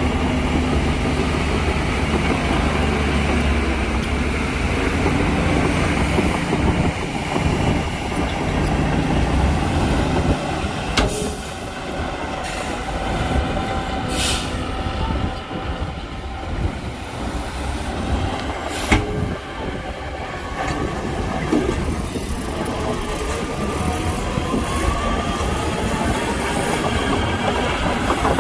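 Heavy diesel earthmoving machinery running with a deep, steady engine rumble that eases after about ten seconds. Sharp metallic clanks come at about eleven, fourteen and nineteen seconds in.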